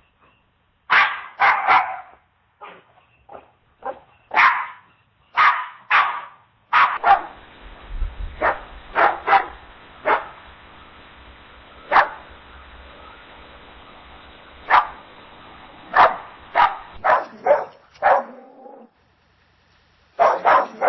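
A dog barking in short, separate barks at irregular spacing, sometimes two or three in quick succession. A steady hiss sits behind the barks through the middle stretch.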